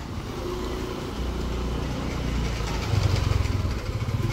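A motor vehicle engine running close by on a street, getting louder about three seconds in.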